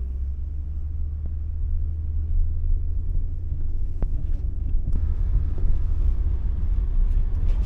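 Engine of a four-wheel-drive vehicle running as it climbs a slippery, snowy hill in four-wheel drive, heard from inside the cab as a steady low rumble, with a little more hiss from about five seconds in.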